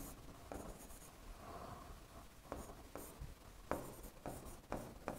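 A pen writing on a board: faint scratching of the strokes, broken by several light taps as the tip meets the surface.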